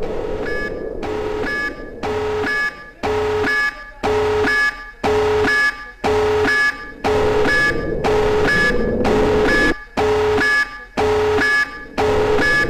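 Electronic alarm sounding in short, evenly repeated pulses, about one to two a second, each carrying a steady lower and a higher tone over a buzzing haze.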